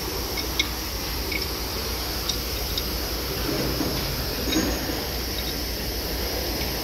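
Repair-shop ambience: a steady low hum and hiss, with a few faint metallic clinks scattered through it.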